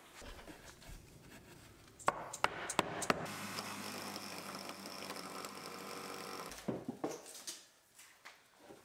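A power tool runs steadily for about three seconds, with a low hum and a high whine, and cuts off suddenly. Knocks and clatter of wooden pieces being handled come before and after it.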